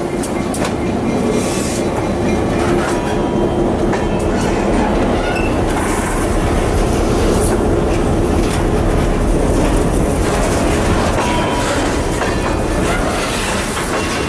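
Freight train rolling slowly over rough, poorly maintained track, its wheels clanking irregularly over the rail joints under a steady rumble.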